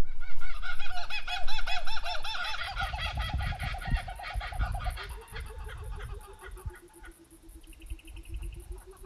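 Birds calling: a rapid run of repeated, arching notes for about five seconds that grows fainter, then a lower, steadier series of calls with a brief high trill near the end.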